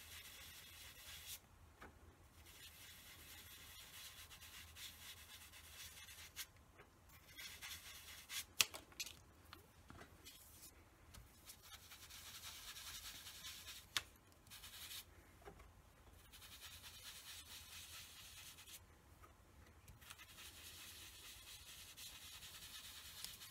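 A small piece of foam stamping sponge rubbed over cardstock to work in ink: faint, soft, scratchy rubbing in stretches of a few seconds with short pauses between them, and two sharp clicks, one about a third of the way in and one past the middle.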